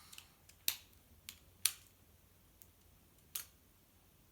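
A few short, sharp plastic clicks and taps from handling a Lock Stars toy lock and its keys, the loudest about one and a half seconds in.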